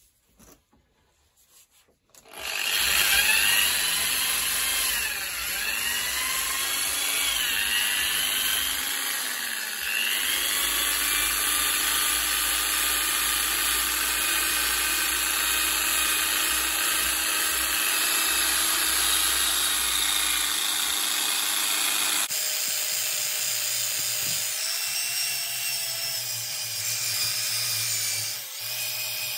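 Power drill spinning a wire wheel against a rusty, plated steel bicycle rim, scrubbing the rust off. It starts about two seconds in and runs steadily, with the motor's pitch dipping and recovering several times as the brush bites. The sound changes abruptly about 22 seconds in.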